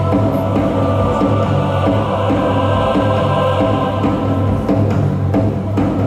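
Loud backing music: sustained chords, with choir-like voices, over a steady low drum beat.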